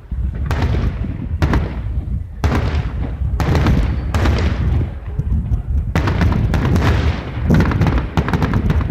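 Aerial fireworks shells bursting in quick succession, a bang about every second, each trailing off in a rumbling echo.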